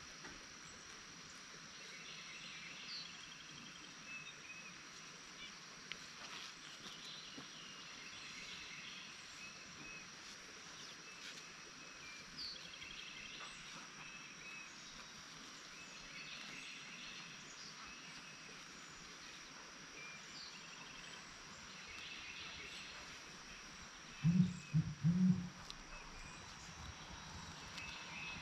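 Rural outdoor ambience: a steady insect drone with birds calling in short repeated trills every few seconds. Near the end comes a brief burst of a few loud low thuds.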